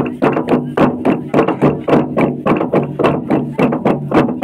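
A huge hollowed-tree-trunk log drum beaten by a row of men with wooden club beaters: a steady run of wooden knocks, about four a second.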